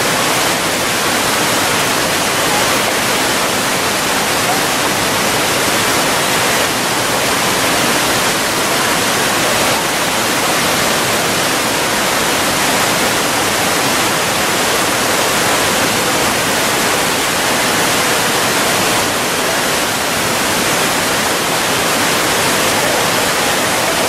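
Steady rushing of a large single-drop waterfall and the river water below it, an even loud hiss with no breaks.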